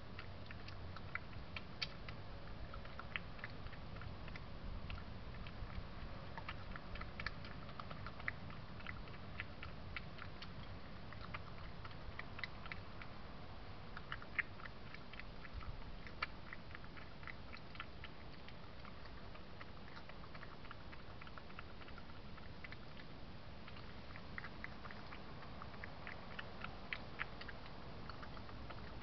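European badger eating from a dish: irregular small crunching clicks of chewing, a few a second, over a steady low hum.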